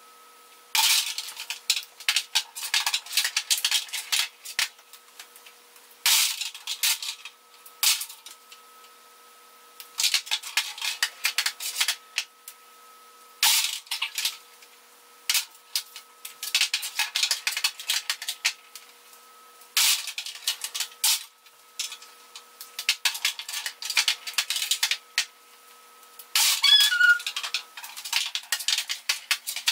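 Wooden skittles in a table-skittles tray clattering as the swung ball knocks them down and as they are stood back up. The clattering comes in bursts of sharp clicks every few seconds.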